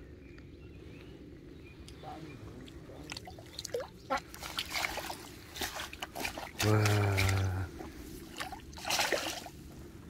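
Water splashing and dripping as a wet mesh fish keep net holding a crucian carp is lifted and handled at the water's edge, in irregular bursts. About seven seconds in, a steady low buzz lasts about a second and is the loudest sound.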